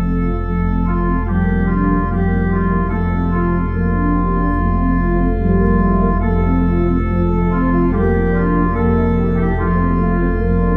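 Church organ played loudly: chords on the manuals that change about every half second over a held low pedal bass.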